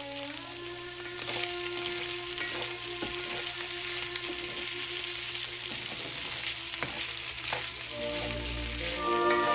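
Shrimp and bell peppers sizzling in a cast-iron skillet as they are stirred, with the utensil scraping and knocking against the pan now and then. Background music plays along and gets louder near the end.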